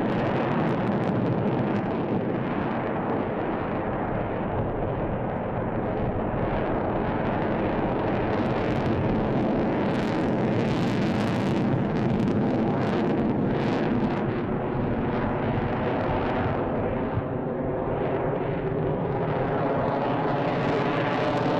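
An F-22 Raptor's twin Pratt & Whitney F119 turbofans in flight: a steady, loud jet roar. It crackles through the middle stretch, and toward the end the tone sweeps faintly as the jet passes overhead.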